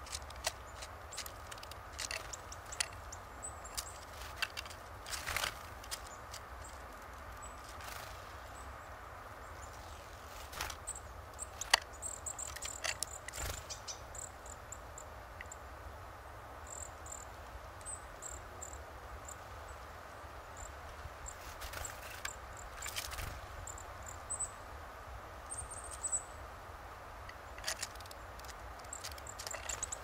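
Eurasian nuthatch pecking at sunflower seeds on a wooden feeder tray: irregular sharp taps and knocks, in clusters. Faint, very high, thin bird calls come in short bits, mostly in the middle.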